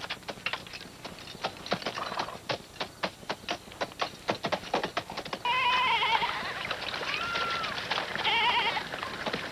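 Horse's hooves clopping on stone in a quick, uneven run of clicks. About halfway through, animals start bleating in short wavering calls, twice.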